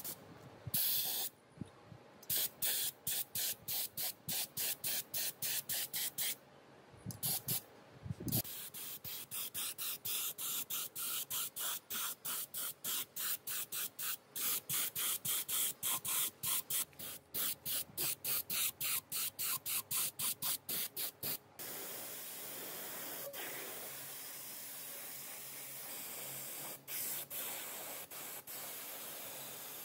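Pressurised spray hissing in many short bursts, about two a second, then running as a steady hiss for the last third.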